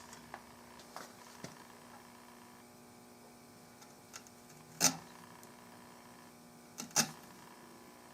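A few light clicks and two sharper knocks, about five and seven seconds in, from the rifle's metal action being handled and worked free of the walnut stock. A faint steady hum runs underneath.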